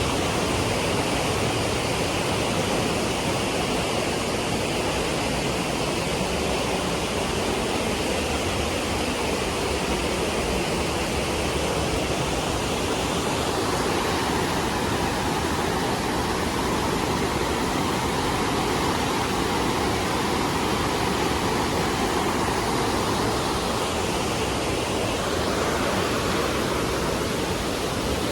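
Mountain waterfall rushing steadily in a gorge, a dense even rush of water whose tone shifts slightly about halfway through.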